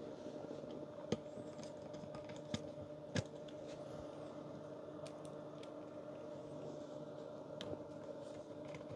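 Small screws and a screwdriver tip clicking and tapping against the radio's plastic and metal parts while the screws are picked up and positioned, a few sharp clicks about one, two and a half and three seconds in. A faint steady hum runs underneath.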